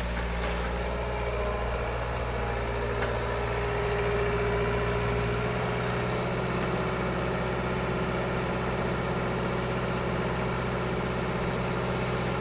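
Hitachi excavator's diesel engine running steadily at low revs, a constant deep hum. Its lowest rumble eases off about halfway through.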